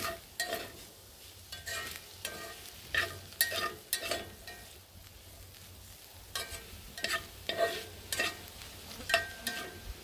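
Metal fork scraping and stirring chicken and black beans in a cast iron skillet, in short bursts of scraping strokes with a faint metallic ring, quieter for a couple of seconds around the middle. A low frying sizzle runs under the strokes as the mixture simmers.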